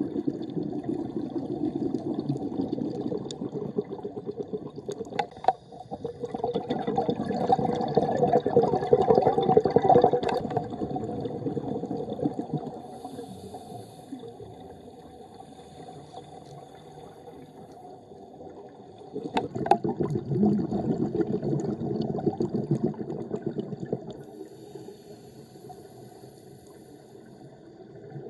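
Underwater bubbling and rushing in three long swells of a few seconds each, with quieter spells between in which a faint high hiss comes and goes, typical of a scuba diver's exhaled bubbles from the regulator heard underwater. A few sharp clicks sound in between.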